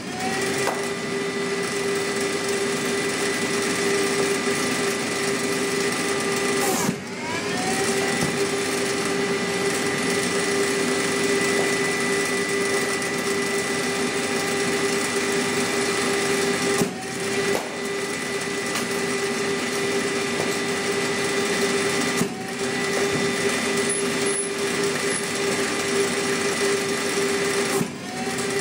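Cricket bowling machine's spinning wheels running with a steady motor hum. Five times, each time a ball is fed through, the hum drops for a moment, then rises back up to speed as the wheels recover.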